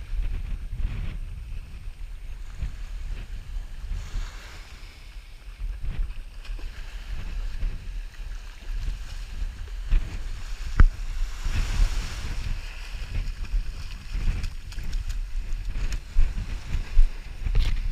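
Strong wind buffeting the camera microphone in gusts, with ocean surf washing on the beach underneath; one sharp click partway through.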